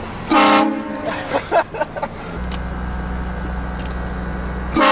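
Train horn fitted to a car, sounded in two short blasts, one about a third of a second in and another near the end. A low steady hum sets in about halfway through.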